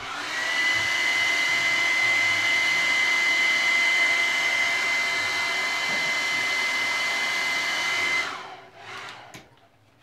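Handheld blow dryer running, a steady rush of air with a high whine, blowing hot air onto the end of a PVC pipe to soften the plastic. It switches on at the start and shuts off about eight seconds in, winding down.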